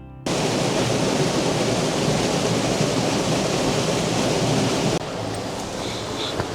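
Waterfall pouring: a steady, loud rush of falling water that starts abruptly and drops to a lower level about five seconds in.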